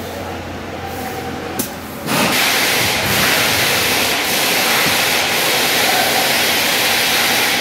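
Compressed air hissing steadily at a truck tyre's valve, starting suddenly about two seconds in.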